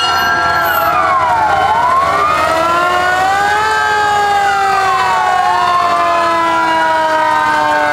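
Several fire truck sirens sounding at once, out of step with each other: slow rising-and-falling wails overlapping sharper up-and-down sweeps, with one tone sliding slowly lower through the second half.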